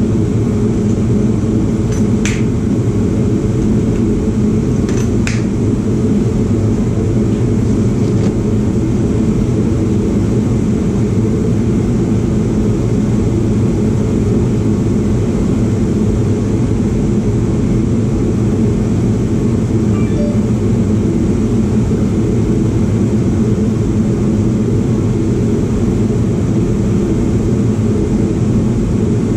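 A loud, steady low drone of running machinery, unchanging throughout, with a few faint light clicks about two and five seconds in.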